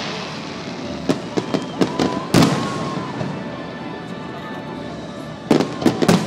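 Fireworks bursting: a string of sharp bangs in the first half, the loudest about two and a half seconds in, then a quick cluster of cracks near the end.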